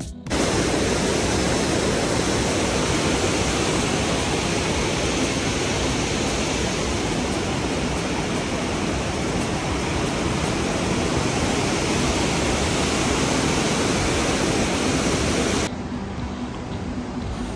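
Loud, steady rushing of water, cutting off abruptly near the end.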